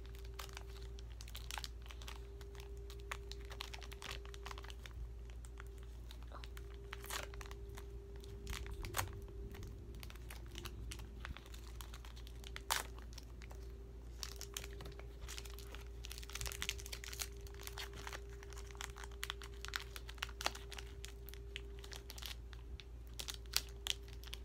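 Foil wrapper of a Pokémon card booster pack crinkling and crackling as it is worked open by hand, in scattered sharp crackles.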